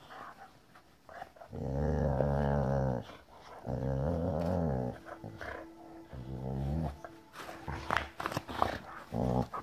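Boxer dog growling as it greets its owner: three long, low growls with short breaks between them, and another starting near the end.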